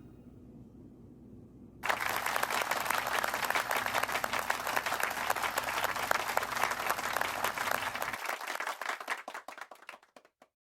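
Applause, starting suddenly about two seconds in as a dense patter of claps, then thinning out to a few scattered claps and stopping near the end.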